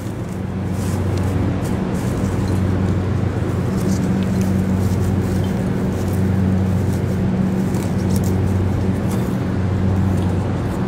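A steady low machine hum, with faint rustling and crackling from hands working a damp bark and sphagnum moss potting mix.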